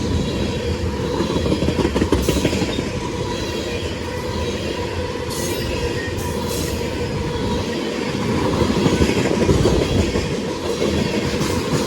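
CSX freight train B741's cars rolling past, with a steady rumble and the clatter of wheels over rail joints, and a faint steady wheel squeal.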